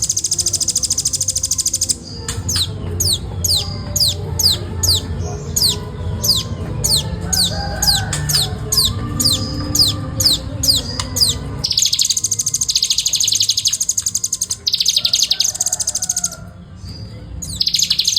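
Velvet-fronted nuthatch singing. It gives fast, buzzy, drill-like trills, then for about ten seconds a quick series of separate high notes, each sliding downward, then the dense trills again in several bursts.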